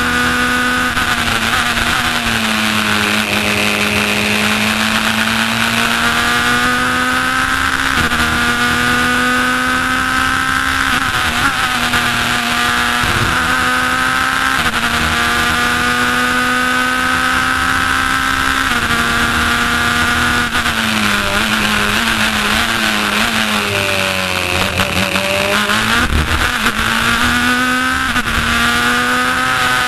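Racing car engine at full throttle, heard from the cockpit. Its pitch climbs through the revs and drops abruptly at several upshifts. About two-thirds through it wavers up and down through downshifts under braking, then climbs again as the car accelerates.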